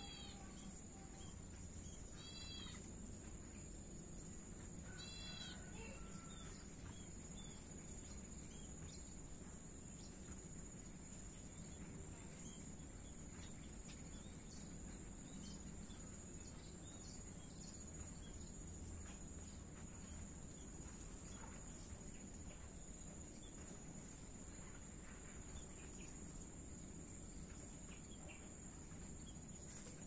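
Faint backyard ambience: crickets keep up a steady high trill throughout. In the first six seconds a bird calls three times, about two and a half seconds apart. Under both runs a low, even rumble of distant traffic.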